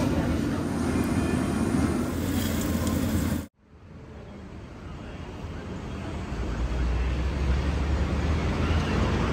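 Steady city traffic noise. It cuts out abruptly about three and a half seconds in, then fades back up, with a heavy low rumble near the end.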